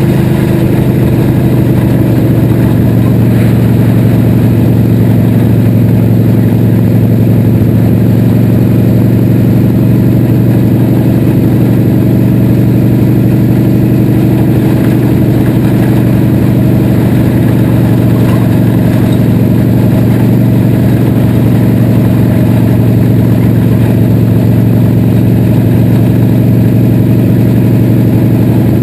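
Dirt-track race car's engine, heard from inside the cockpit, running loud and steady at a nearly constant pitch, with a slight drop in pitch right at the start.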